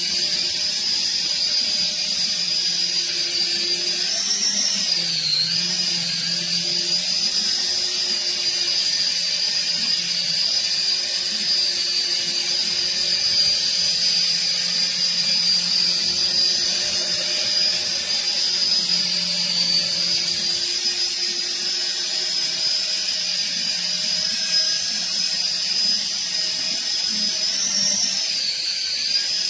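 Small RC helicopter's electric motors and rotors whining steadily in flight, a high whine that dips briefly in pitch about four to five seconds in and again near the end.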